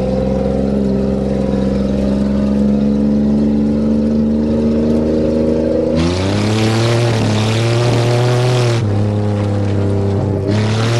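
1990 Buick's engine running hard under load as the car is driven through mud, heard from inside the cabin, its pitch slowly climbing. About six seconds in the revs jump and a loud rushing noise joins it for about three seconds, coming back briefly near the end.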